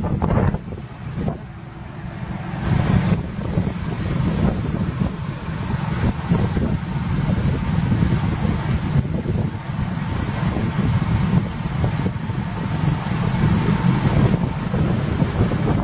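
Car on the move: a steady low rumble of road and engine noise with wind noise over it.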